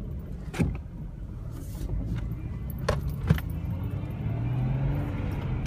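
Chrysler Crossfire's 3.2-litre V6 running with a steady low rumble, broken by a few sharp clicks. About four seconds in, a pitched tone rises as the engine note climbs.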